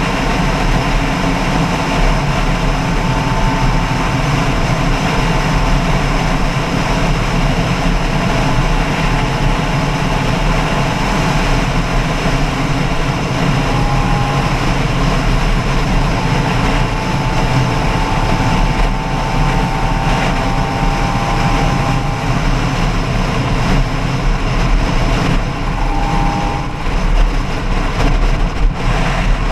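Steady engine noise of a moving vehicle, running without letup, with a few faint wavering tones above it.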